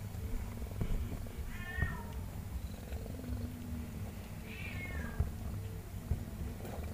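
Mother cat purring steadily while newborn kittens nurse against her. Two short, high mews that rise and fall come about one and a half seconds in and again about four and a half seconds in.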